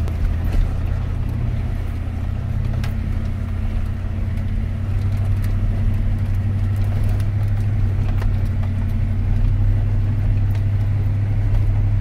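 Steady low drone of a car's engine and road noise, heard from inside the moving car, with scattered faint clicks and rattles. It gets slightly louder about halfway through.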